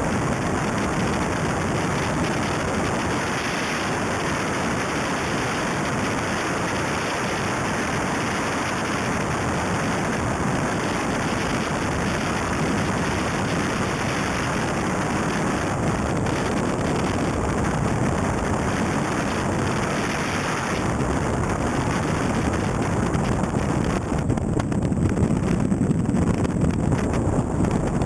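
Wind buffeting an outside-mounted camera on a Mitsubishi Lancer Evo 3 rally car driven fast on a gravel road, over a steady rush of engine and tyre-on-gravel noise. From about three quarters through, a heavier low rumble comes in and it gets a little louder.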